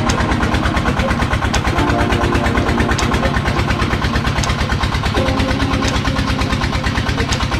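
Boat engine running steadily at sea, a fast even pulsing with a sharp tick about every second and a half.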